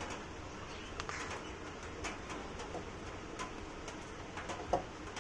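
A screwdriver turning out the screws of a Studiomaster amplifier's steel top cover: a few light clicks, the sharpest near the end, with birds calling in the background.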